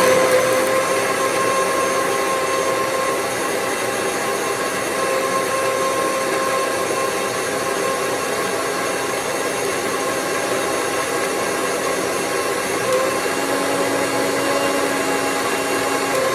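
Electric mixer grinder running at full speed with a steady motor whine, blending custard apple into juice.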